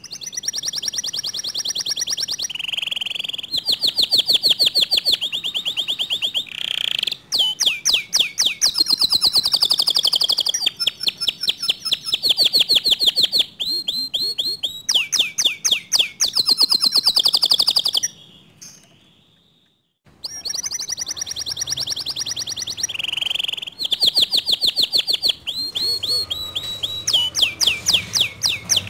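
Domestic canary singing a long, loud song of fast trills and rolled phrases of rapidly repeated notes. It breaks off for a couple of seconds about two-thirds of the way through, then starts again.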